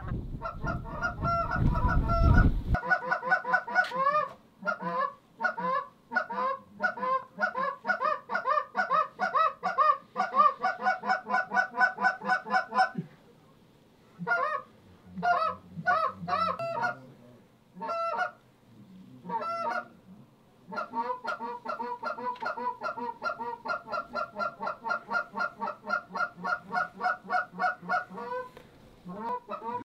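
Canada geese honking, many short calls in quick runs with sparser calling around the middle. Gusty wind rumble on the microphone for the first couple of seconds cuts off abruptly.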